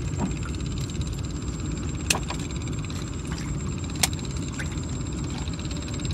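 Small fishing boat's engine running steadily, with two sharp clicks about two seconds apart.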